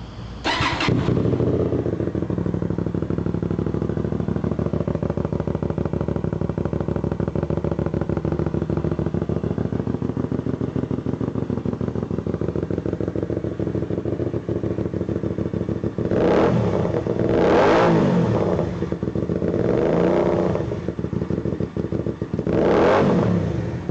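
Kasinski Mirage 250's V-twin engine through a Roncar Scorpion aftermarket exhaust, starting up about half a second in and idling steadily, then revved four times near the end, each rev rising and falling.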